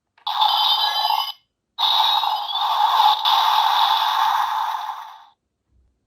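DX NEO Decadriver transformation-belt toy playing electronic sound effects through its speaker: a short burst, then after a brief gap a longer ringing effect that fades out about five seconds in.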